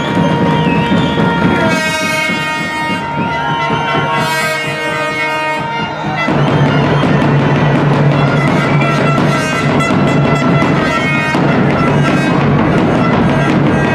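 Music with drums and a melody, played over an ice rink's public-address system during a stoppage in play; the tune changes about six seconds in.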